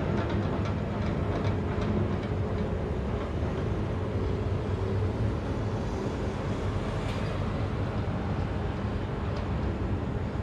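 Steady rumble of distant city traffic from an elevated highway at night.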